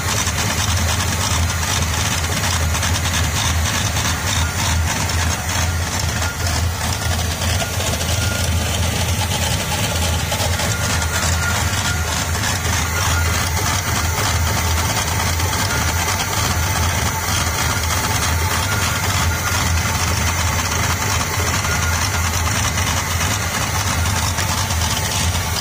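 1983 Camaro Z28's carbureted 305 V8 idling steadily with the air cleaner off, on its first run after sitting seized for 28 years.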